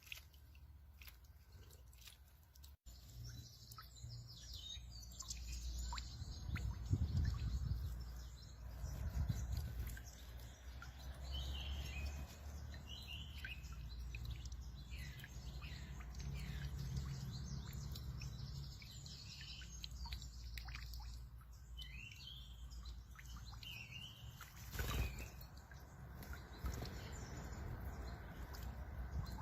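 Small birds giving short, scattered chirps in a few brief clusters, over a steady low rumble.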